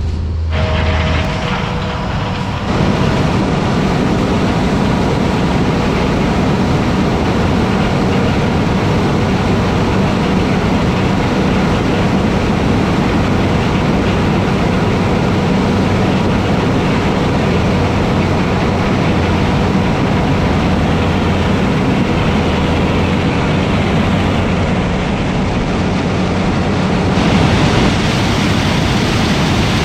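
Heavy farm machinery running steadily: a loud, even engine noise with a low hum that grows louder about three seconds in.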